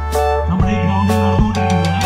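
Music with a steady beat, about two beats a second, over a deep held bass.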